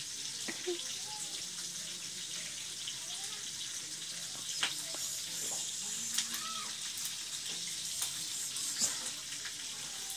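A steady rushing hiss like running water, with faint distant voices and a few light clicks.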